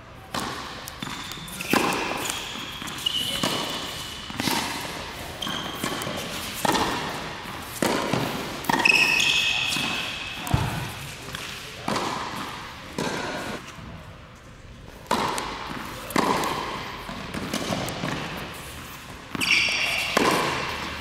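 Tennis rally on an indoor hard court: a run of sharp racket-on-ball hits and ball bounces, roughly one every second or two, each echoing in the large hall. Short, high squeaks are mixed in.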